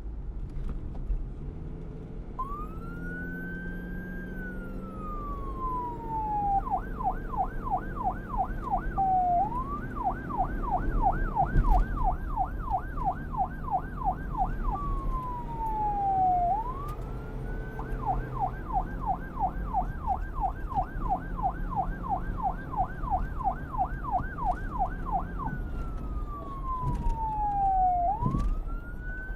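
Police car siren, starting about two seconds in and switching back and forth between a slow wail, one long rise and fall, and a fast yelp of about three sweeps a second. A low rumble runs underneath.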